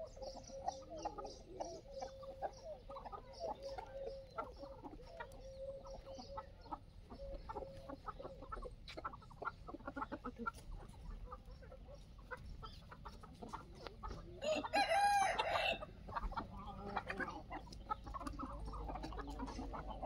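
Desi free-range chickens clucking on and off, and a rooster crowing once, loudly, about two thirds of the way through.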